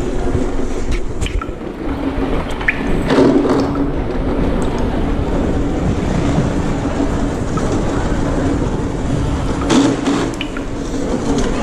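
Small hard wheels of a flatbed hand trolley rolling steadily over a hard floor, with glass beer bottles rattling in a plastic crate on it; a couple of sharper knocks, about three seconds in and near the end.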